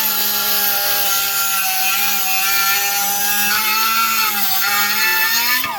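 High-speed cut-off tool running at a steady pitch while cutting through the sheet-steel floor pan, sagging slightly under load. Near the end it is released and its whine falls away as the wheel spins down.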